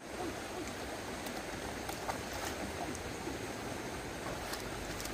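Stream water running steadily, with small bubbling splashes and a few faint clicks.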